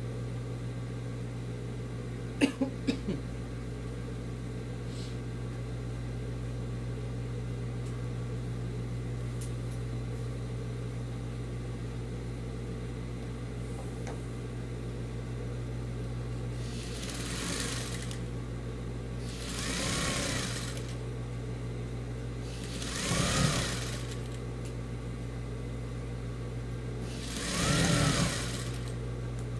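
Sewing machine stitching in four short runs in the second half, each speeding up and then slowing down, over a steady motor hum. A few sharp clicks come about two and a half seconds in.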